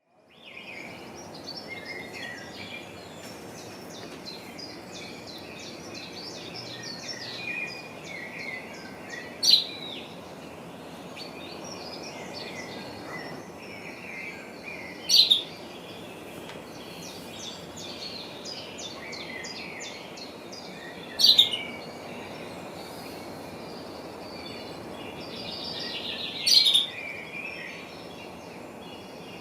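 Many small birds chirping and twittering over a steady background hiss. A louder, sharp call cuts through four times, about every six seconds.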